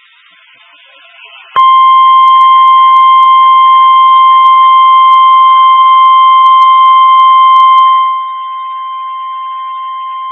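NOAA Weather Radio 1050 Hz warning alarm tone: a single steady, high, pure tone that comes on sharply about a second and a half in and holds for about nine seconds. It drops noticeably in level near the end.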